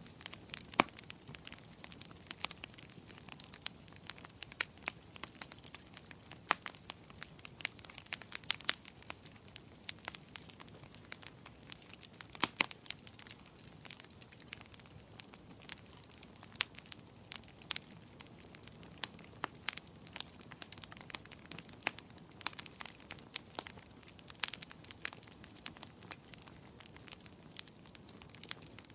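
Wood fire crackling, with irregular sharp pops and snaps over a faint, steady hiss of burning.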